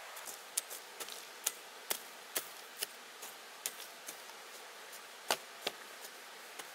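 Irregular sharp knocks and clicks of wood being struck or cut by hand, two to three a second at an uneven pace, over a steady hiss. The loudest knock comes about five seconds in.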